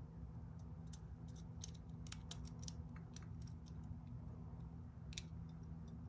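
Faint small clicks and ticks of a brake light switch's plastic plunger and housing being handled and slid together, most of them in the first half with one sharper click near the end, over a steady low hum.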